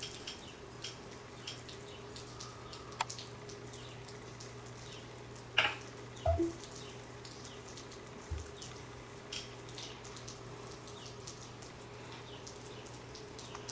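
Quiet room tone: a steady low hum with scattered faint clicks, and a few soft knocks about halfway through.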